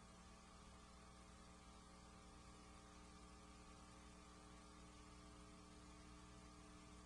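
Near silence: a faint, steady electrical mains hum with light hiss.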